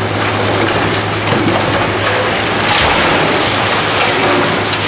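Demolition of a reinforced-concrete building: a continuous rush of falling concrete rubble mixed with the hiss of a dust-suppression water spray, with a few knocks in it and a steady low hum from the demolition machine's engine underneath.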